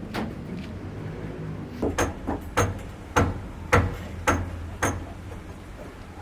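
Hammer blows on a building site: a knock at the start, then about two seconds in a steady run of sharp strikes a little under two a second, ending about five seconds in. A low steady hum lies under them.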